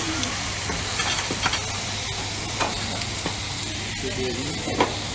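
Slices of meat sizzling on a hot flat-top griddle, with a utensil clicking against the metal plate a few times, loudest near the end.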